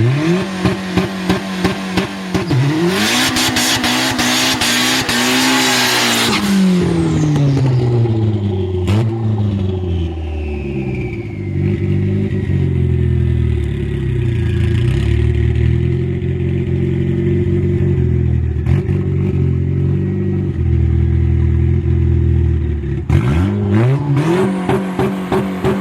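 Turbocharged four-cylinder engine of a 2007 Chevrolet Cobalt SS revved hard, with rapid crackling pops while the revs are held high. About three seconds in, a loud rushing hiss joins it for a few seconds; then the revs fall away to a lower, uneven running with a faint whine sliding down in pitch, and the engine is revved again with popping near the end. The swapped turbo on this car is called bad.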